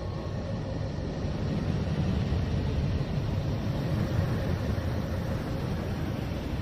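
Space radio emissions converted into audible sound, the kind presented as a planet's 'song': a steady, low rumbling drone with a hiss above it and a faint held tone.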